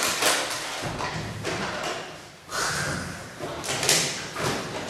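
Plastic props being handled: an irregular run of sharp knocks, rustles and crackles, with the loudest hit a little before the end.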